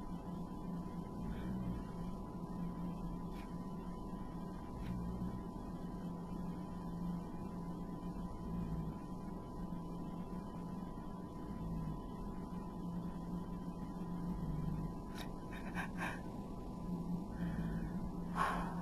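Steady low electrical hum with a faint, thin high tone over room noise; a few faint clicks near the end.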